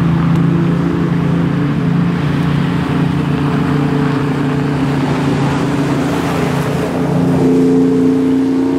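Vehicle engines running steadily, growing louder near the end as a pickup truck and an SUV drive past close by on the snow- and ice-covered road.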